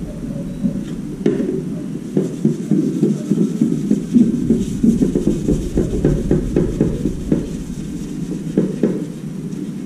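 Pliers clicking and scraping on the metal of a pedestal fan's motor housing, many small irregular clicks over a steady low rumble.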